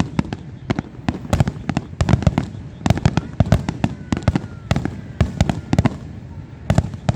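Fireworks finale: a rapid barrage of shell bursts going off several times a second, the bangs overlapping and echoing, with a faint whistle of a rising shell partway through.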